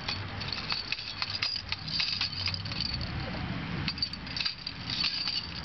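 Plastic whirligig baby toy rattling and clicking as a baby grips and moves it, a scattered run of small sharp clicks.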